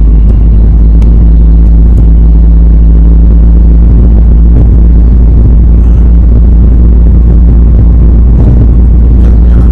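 Loud, steady low rumble of a vehicle on the move, with engine and road noise and no change in pace.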